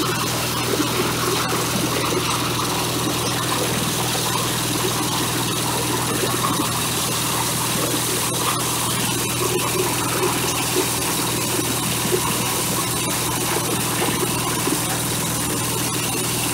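Corn husker-sheller machine running under load, driven by a single-cylinder engine: a steady engine hum under a dense rattle and rush of ears being husked and shelled, with scattered sharp knocks.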